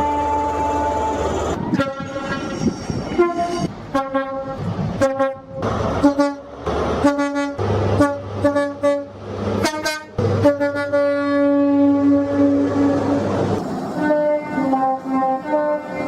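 British train two-tone horns sounding a rapid series of short blasts that step between a higher and a lower note, with one long held blast about ten seconds in and more short blasts near the end.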